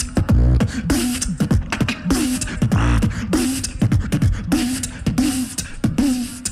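Live beatboxing: a beat of punchy kick drums and sharp snares, laced with short pitched vocal notes that drop into a held low tone, about twice a second.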